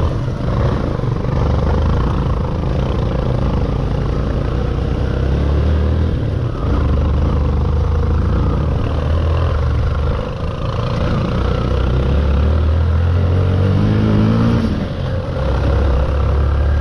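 Motorcycle engine pulling at low revs over a rocky dirt trail, the throttle opened and eased off in stretches. The revs rise briefly about thirteen seconds in.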